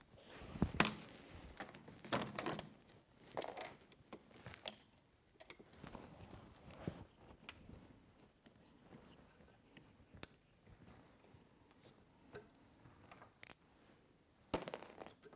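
Irregular light clicks, scrapes and metallic clinks of a Phillips screwdriver and small hardware being worked on a wooden Pilates reformer carriage as a screw is undone and a lanyard end removed. The sharpest clicks come about a second in and near the end.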